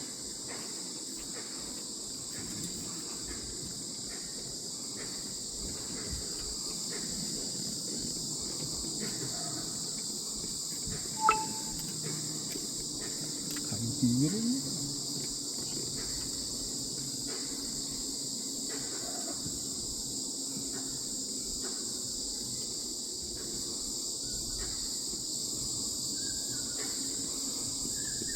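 Steady high-pitched insect chorus, crickets or cicadas, holding two continuous tones. A single sharp click sounds about 11 seconds in, and a brief low sliding sound a few seconds later.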